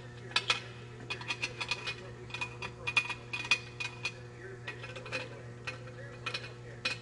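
Hand ratchet clicking in short quick runs, with sharp metal clinks, as the intake manifold bolts are run in on a Detroit Diesel Series 60 engine. A steady low hum runs underneath.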